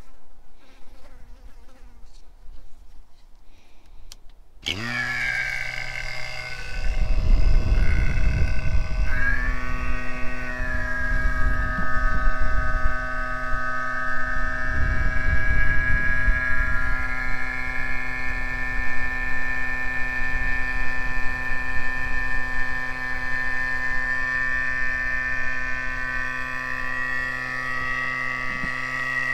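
Battery-powered portable A/C vacuum pump switched on about five seconds in, its whine dipping in pitch as it spins up, then running with a steady hum and whine while it pulls a vacuum on the air-conditioning system. It runs rougher and louder for roughly the first ten seconds, then settles to an even drone.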